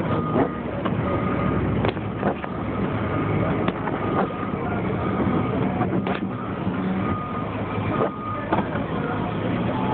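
Truck engine running steadily, with short high beeps repeating through it and a few sharp knocks.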